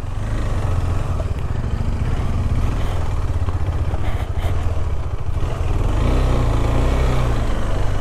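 KTM 390 Adventure's single-cylinder engine running steadily at low revs while the motorcycle is ridden slowly, its pitch wavering a little near the end.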